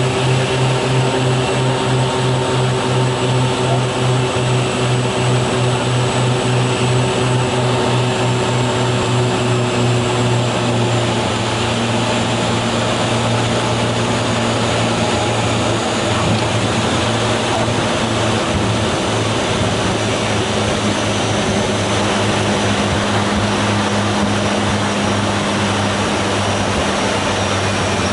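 The Twin Otter's two Pratt & Whitney PT6A turboprop engines and propellers, heard from inside the cockpit: a loud, steady drone with a beating propeller hum. About eleven seconds in it eases slightly and changes pitch as power is pulled back for the landing.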